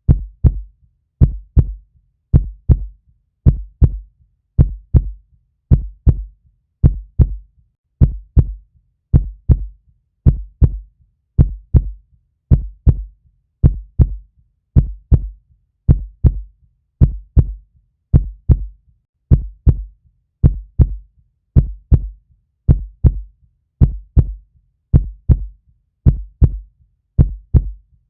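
Human heartbeat: a steady lub-dub of paired low thumps, a little more than one beat a second.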